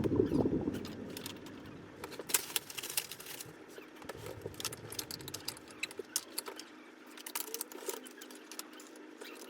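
Scattered light clicks and small rattles, like chair parts and hardware being handled, with a louder low rustling or handling noise in the first second.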